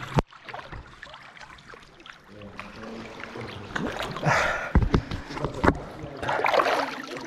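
Muddy water sloshing and splashing close to the microphone as a person moves chest-deep in a cave mud pool, growing louder from about the middle on, with a few low bumps near the end.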